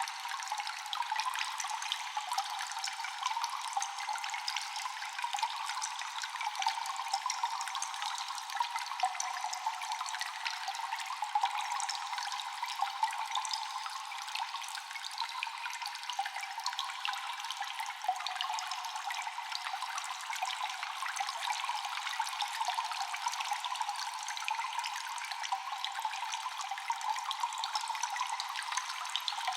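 Constant dripping water echoing in a cave: many drops falling at once, blending into a steady trickling wash. The sound is thin, with nothing deep in it, and stays even throughout.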